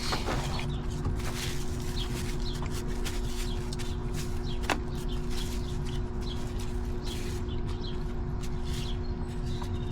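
Eating noises of someone chewing a burger and fries: short wet smacks and clicks over a steady low hum, with one sharper click about halfway through.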